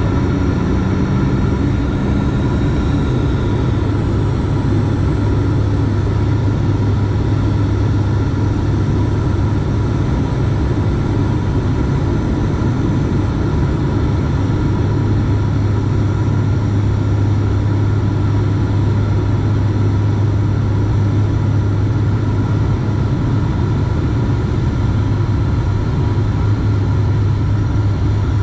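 Steady drone of a turboprop airliner's engines and propellers in flight, heard inside the cabin, with a strong low hum and the landing gear lowered.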